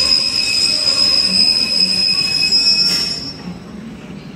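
A Greater Anglia passenger train squealing as it moves slowly past the platform: a loud, steady, high-pitched wheel squeal that cuts off suddenly about three seconds in, leaving quieter low running noise.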